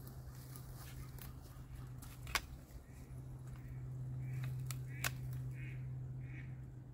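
Long-handled loppers snipping through dry brush branches, two sharp cuts about two and a half seconds apart. In the second half, mallard ducks quack in a short run of evenly spaced calls.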